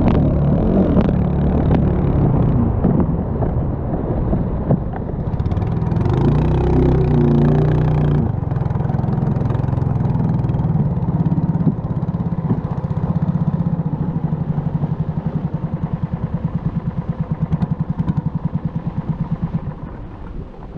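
Racing banca's Kress Nautica engine running hard at speed, with water and spray rushing past the hull. In the last several seconds the engine eases off into a slower, evenly pulsing beat as the boat slows.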